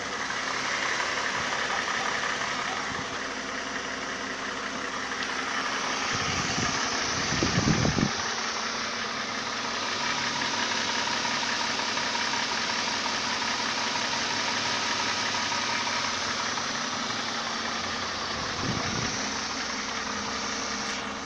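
Mercedes M272 V6 petrol engine idling steadily with a knock, the engine knock that the owner is recording it for. The sound swells briefly louder about seven seconds in.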